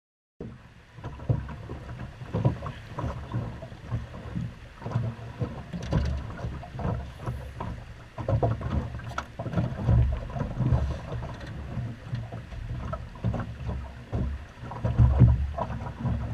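River water slapping and knocking irregularly against the hull of a drift boat riding a moving current, over a steady low rumble.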